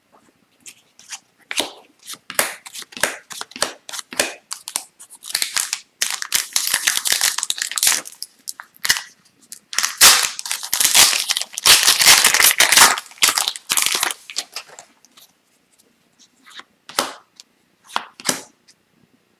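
Foil trading-card pack wrapper being torn open and crinkled: sharp crackles throughout, with two longer, denser bursts of tearing and crinkling partway through, then only scattered clicks.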